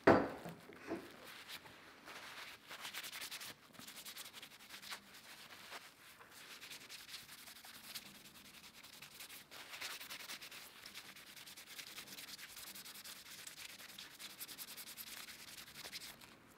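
Paper towel rubbing and rustling against the plastic body of a Shimano brake lever as spilled brake oil and brake cleaner are wiped off, a steady scratchy wiping that rises and falls. A sharp knock right at the start is the loudest sound.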